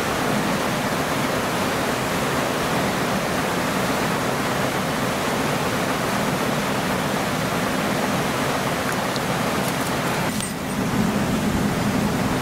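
Mountain stream water rushing steadily, with a brief dip in level about ten seconds in.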